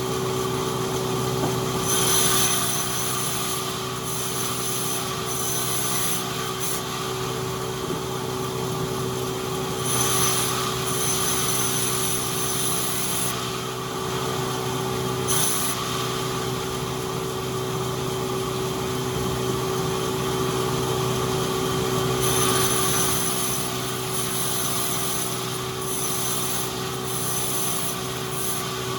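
Sawmill machinery running with a steady hum, with several stretches of a few seconds each of high-pitched noise as the saw cuts wood.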